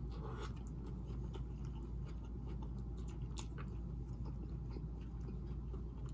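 A bite into a burger, then slow chewing with faint, irregular wet clicks, over a steady low hum.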